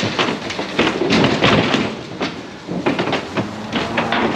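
Cattle moving over metal livestock pens and a trailer: irregular hoof clatter and knocks from metal gates and floor, with a faint steady low hum in the second half.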